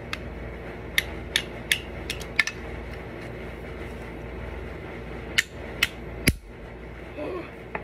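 Hammer tapping small plastic model pieces to force a joint into place: sharp knocks, four or five in the first couple of seconds and three more about five to six seconds in, the last the loudest.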